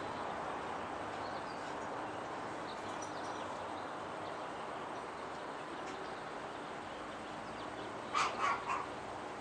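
A dog barks three times in quick succession near the end, over steady outdoor background noise.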